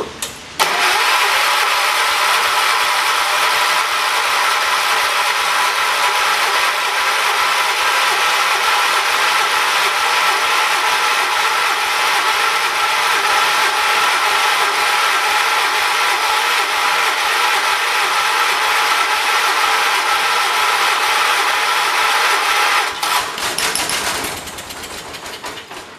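John Deere 212 lawn tractor's Kohler single-cylinder engine starting up abruptly and running loud and steady. About 23 seconds in it is shut off and runs down over a couple of seconds.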